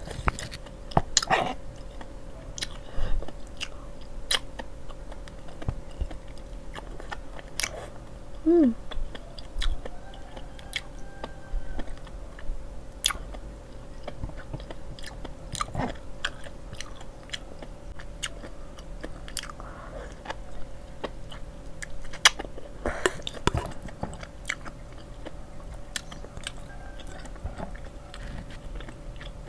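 Close-miked eating: chewing and biting into spicy carbonara instant noodles and enoki mushrooms, with scattered sharp clicks and a faint steady hum underneath.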